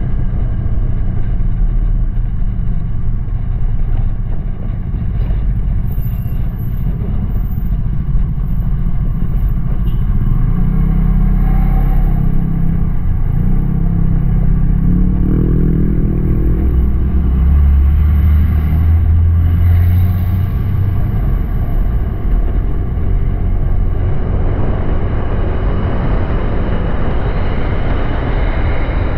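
Honda Click 125i scooter's single-cylinder engine running on the move, under a heavy low rush of wind on the microphone. About halfway through, the engine note rises as it speeds up.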